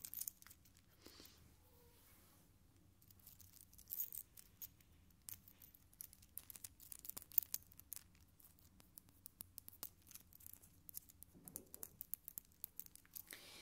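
Close-miked crisp clicks and crackles of fingertips and long nails working right in front of a microphone, an ASMR hand-sound trigger. The taps come irregularly and quickly, loudest about four and seven seconds in.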